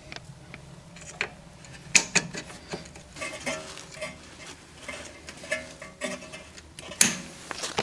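Light metallic clicks and rattles of the parking brake cable being threaded into the lever and spring bracket of a 2012 Mazda 3's rear brake caliper, with sharper clicks about two seconds in and near the end.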